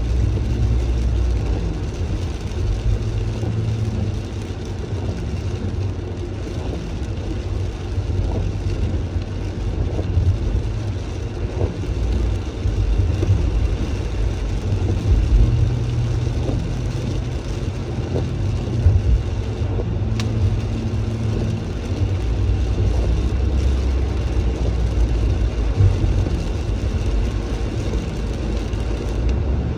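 Inside a moving car in the rain: a steady low rumble of engine and road noise with a fainter hiss of tyres on wet pavement, scattered faint ticks, and a single sharp click about twenty seconds in.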